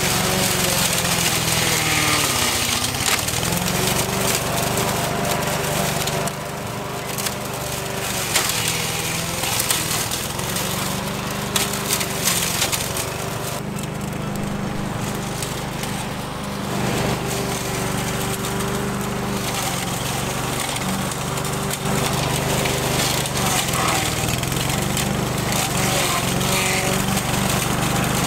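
Petrol walk-behind lawn mower running under heavy load as it mulches leafy branches and overgrown weeds, the engine note dipping a couple of seconds in as it bogs down and then recovering. Woody stems crack and crunch against the blade at intervals.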